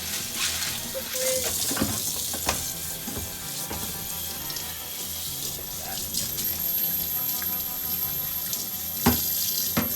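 Tap water running into a sink while aquarium filter parts are rinsed clean, with a few knocks of plastic parts, the loudest near the end.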